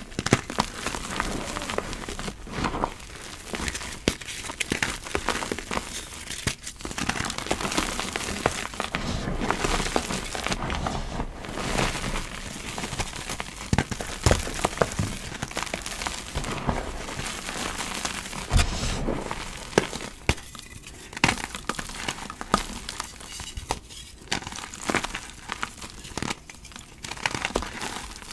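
Blocks of gym chalk crumbled and crushed between fingers into a bed of loose chalk powder: a steady soft crunching and crackling with sharper snaps. After about twenty seconds it thins out into separate crisp crunches with short pauses between them.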